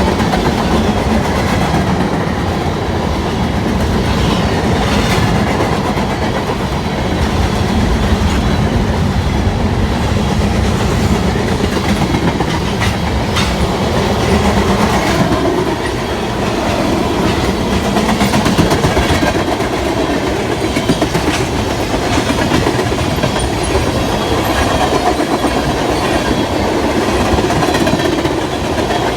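Freight train's cars rolling past in a steady rumble, with steel wheels clicking over the rail joints now and then.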